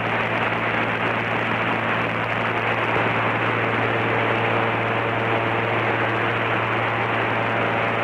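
Steady hiss with a low hum from the Cessna 310 cockpit's headset intercom and radio feed, with the engines' drone muffled beneath it. The radio sits on the AWOS frequency between broadcasts. A faint steady tone comes in about halfway through.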